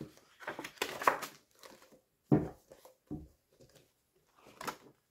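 A paperback manga volume being handled and opened: short rustles of paper pages and the card cover being bent back, with a dull knock about two seconds in.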